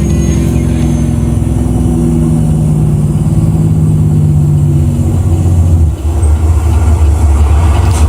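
Truck engine running steadily, a low drone on a TV commercial's soundtrack; it dips briefly about six seconds in.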